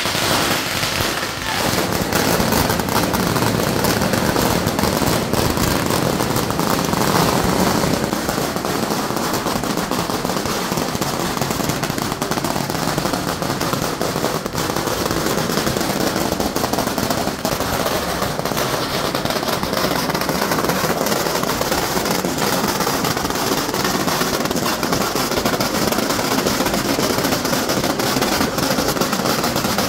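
A long string of red Chinese firecrackers going off in a dense, unbroken rapid crackle.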